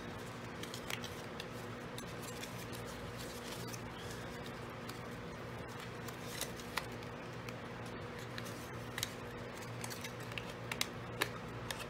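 Faint rustling and small crisp clicks of cardstock being handled while an elastic rubber band is threaded through punched holes, with a few more clicks near the end, over a steady low background hum.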